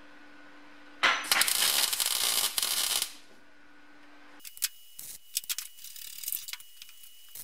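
MIG welder laying a plug weld through a drilled hole into sheet-steel floor panel: a loud crackling arc for about two seconds, starting about a second in. The welder is on a setting its user thinks was too low for this weld. Scattered faint clicks and ticks follow.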